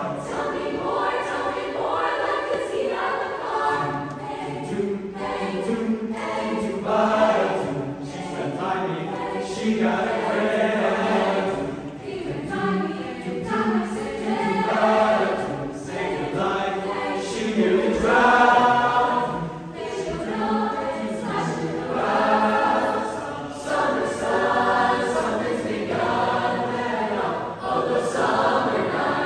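Mixed youth chorus of girls and boys singing a barbershop-style song in close harmony, a cappella, under a conductor.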